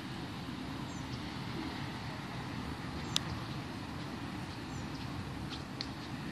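Steady low outdoor rumble with a few faint high chirps, and one sharp click about three seconds in.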